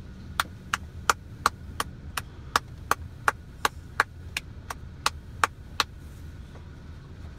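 A run of about sixteen sharp, evenly spaced clicks, roughly three a second, stopping about six seconds in, over a steady low rumble.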